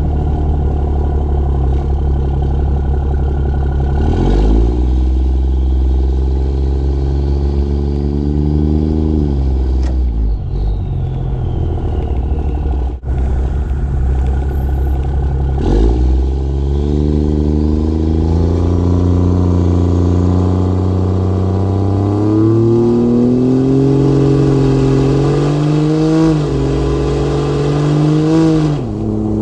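2014 Ram 2500's 6.7 Cummins inline-six turbo diesel, heard at its 5-inch straight-out exhaust with an 8-inch tip, under full-throttle acceleration. The exhaust note climbs in pitch through a pull and falls back. Then a second, longer pull rises through the gears, with the pitch stepping down at each shift.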